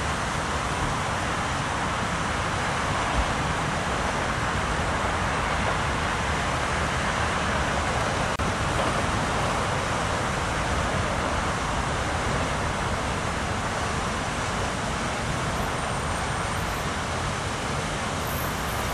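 Steady road traffic noise from cars and vans crossing a bridge: an even rush with no single vehicle standing out.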